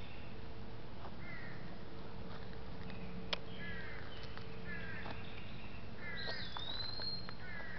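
Birds chirping: a short, falling chirp repeated about once a second, with one longer whistle near the end. A few faint clicks sound over a steady low hum.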